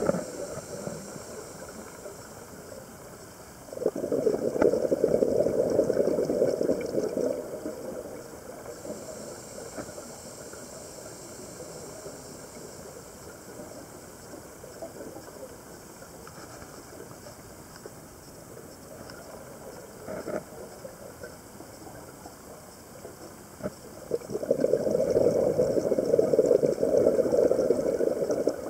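Underwater sound of a scuba diver's exhaled bubbles: two long gurgling bursts of several seconds each, one about four seconds in and one near the end, over a faint steady underwater hiss with scattered faint clicks.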